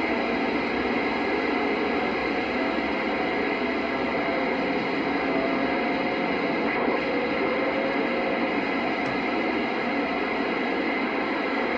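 CB radio receiver giving out a steady hiss of static through its speaker, with no voice on the channel.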